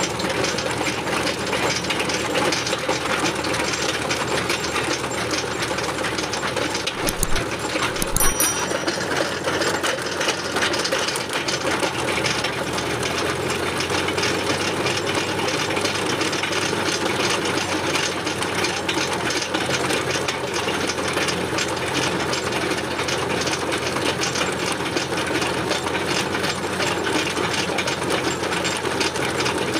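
Tractor-mounted earth auger boring a pole hole in dry soil: its drive runs steadily under load with a fast mechanical chatter. Two brief knocks come about seven and eight seconds in.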